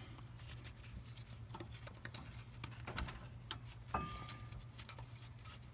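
Faint scattered metallic clicks and taps of a brake pad being worked out of its caliper bracket, with one tap about four seconds in ringing briefly.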